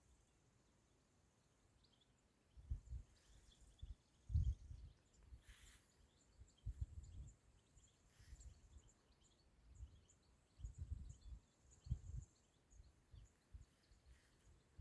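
Quiet outdoor nature ambience: wind buffeting the microphone in irregular low gusts from about two and a half seconds in, with faint high bird chirps throughout.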